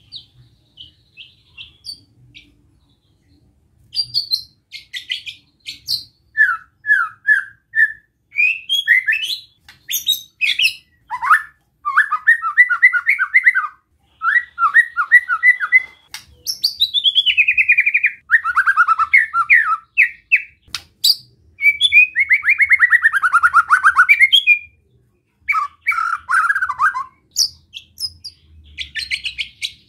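White-rumped shama singing in the harsh, fast 'besetan' style, the challenging song keepers play to provoke other shamas. After a few faint short notes and a short gap, it pours out loud, varied phrases of rapid rattling trills, falling slurred notes and sharp clicks, with one brief pause near the end.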